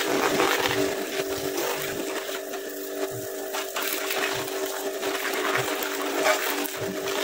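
A small machine motor running steadily with an even hum, over a continuous hiss and a few light clicks.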